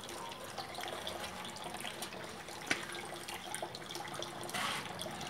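Water trickling steadily, with a light click about two and a half seconds in and a brief louder splash of hiss near the end.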